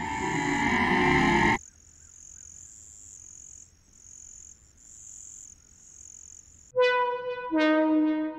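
Film soundtrack: a loud, dense music passage cuts off abruptly about a second and a half in. It leaves a faint, high, pulsing tone. Near the end, two loud, sustained, brass-like horn notes sound in quick succession, the second one lower.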